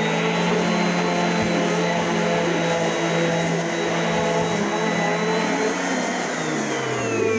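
Random orbit sander with dust bag, running steadily at speed, then winding down near the end.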